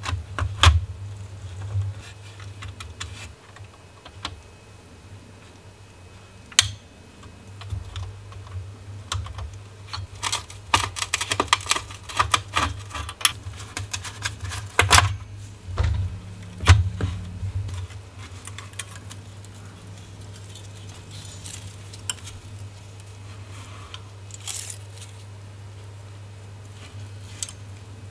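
Clicks and metallic clinks of the dirty metal plates and parts of a 1970s Citizen wall clock movement being taken apart with pliers and gloved hands. There is a dense run of rapid clicking about halfway through, over a steady low hum.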